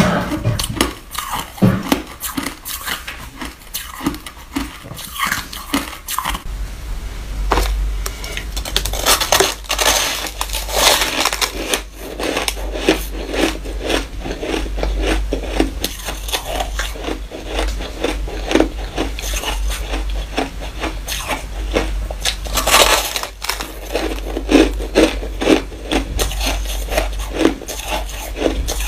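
Close-miked biting and chewing of compacted white shaved ice, a dense, irregular crunching and crackling.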